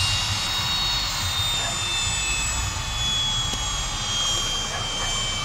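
Fokker 100 jet airliner's twin rear-mounted Rolls-Royce Tay turbofans running as it rolls past along the runway: a steady low rumble under a high whine that slowly falls in pitch as the aircraft passes and moves away.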